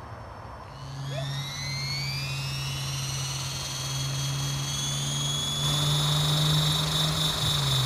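Align T-Rex 450 XL electric RC helicopter spooling up on the ground: a high motor whine rises in pitch over the first two seconds or so, then holds steady as it grows louder, over a steady low hum.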